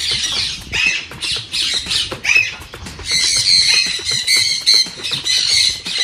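A flock of caged parrots squawking and screeching continuously, many shrill calls overlapping.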